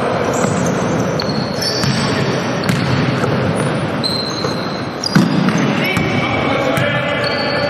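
Basketball game on a wooden hall floor: sneakers squeaking, the ball bouncing and players' feet pounding, all echoing in the hall, with a sharp thump about five seconds in.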